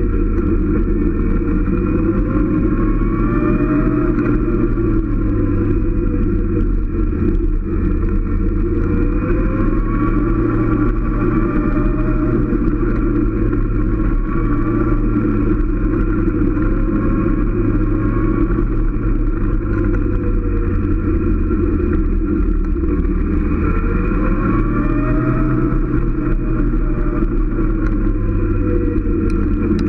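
Motorcycle engine running while riding along a winding road, its pitch rising and falling smoothly several times as the rider opens and closes the throttle, over a steady low rumble.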